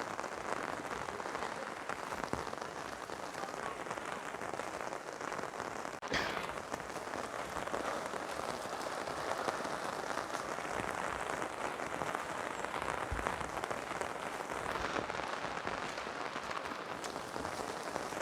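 Heavy rain falling steadily, an even hiss of drops on surfaces, with one brief knock about six seconds in.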